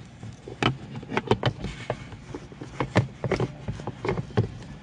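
Handling noise from a phone being hung up and fixed in place: a run of irregular clicks and knocks close to the microphone.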